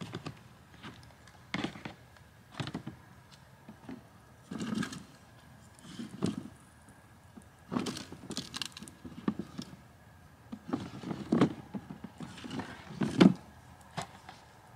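Split firewood logs being lifted out of a storage bin, giving irregular wooden knocks and clunks as they bump against each other and the bin, the loudest near the end.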